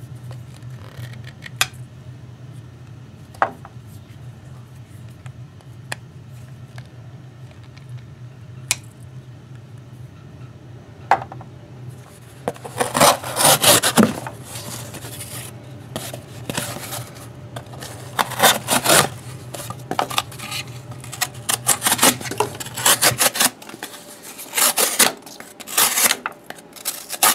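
Benchmade Mini Griptilian folding knife cutting test materials. At first there are only a few faint clicks as the blade works into thick tubing. From about halfway comes a long run of loud, short scraping slicing strokes as it cuts through cardboard, over a low steady hum that stops near the end.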